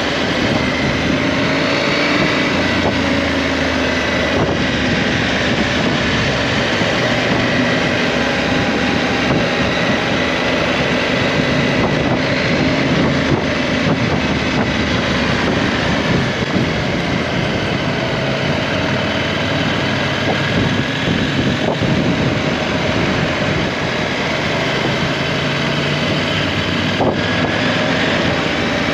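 KTM 790 Adventure's parallel-twin engine running steadily under way, its pitch drifting a little as the speed changes, with wind noise on the microphone.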